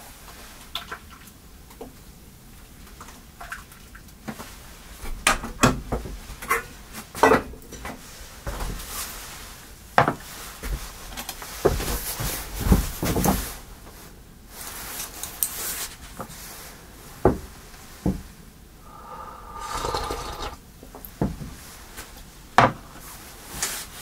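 Dishes and wooden kitchen items being handled and set down: irregular knocks and clinks, some sharp and loud, with a short scrape about twenty seconds in.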